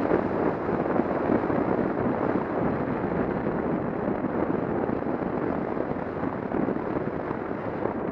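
Steady rush of wind buffeting the microphone and road noise while riding a touring motorcycle at speed.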